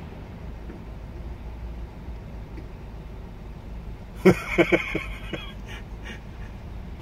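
A duck quacking a quick run of four or five quacks that fade off, about four seconds in, over a low steady rumble.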